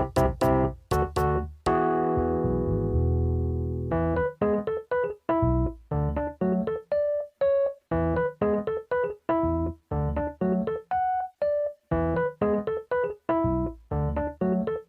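Background music: a keyboard tune of short, detached notes, with one chord held for about two seconds near the start.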